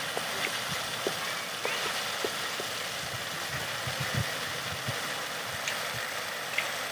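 Red chili sauce simmering in a metal wok, bubbling with small scattered pops over a steady hiss.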